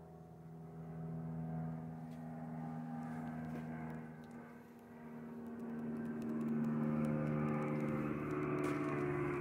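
Cammed Chevrolet 292 inline-six engine running in the truck's engine bay. About halfway through it gets louder and its pitch rises, then it holds at the higher speed.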